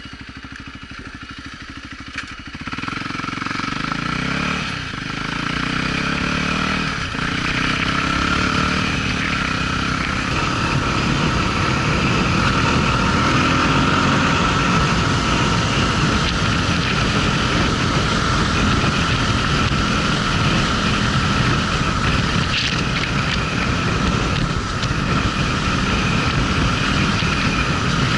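Voge 300 Rally's single-cylinder engine idling, then pulling away about two seconds in and revving up through the gears with two brief dips at the shifts. It then runs steadily under way, mixed with an even haze of wind and tyre noise.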